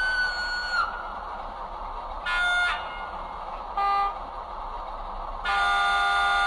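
Sound decoder of an H0-scale model DA 060 diesel locomotive sounding its horn. A single high tone ends about a second in, then come a short chord blast, a very short toot, and a longer chord blast near the end, over a steady hiss.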